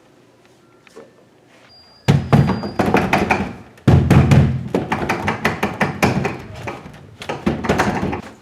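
A loud, rapid run of thuds and rattling starting about two seconds in: a locked door being yanked and banged on.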